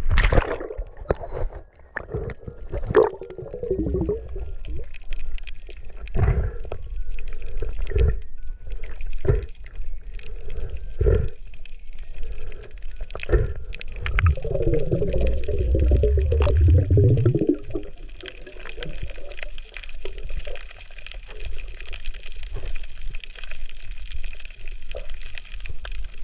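Water sloshing and gurgling around a camera at and below the surface, with irregular knocks and clicks and a longer gurgling rush a little past the middle.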